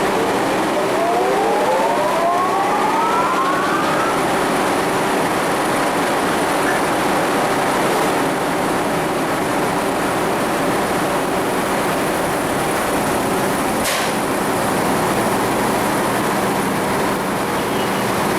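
Sawmill machinery running loud and steady. A double rising whine climbs over the first four seconds, and there is a single sharp click about fourteen seconds in.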